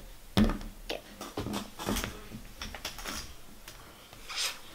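Handling noise: a string of light knocks, taps and rubs as a child handles a case and things near the microphone, the firmest knock about half a second in and a brief scrape near the end.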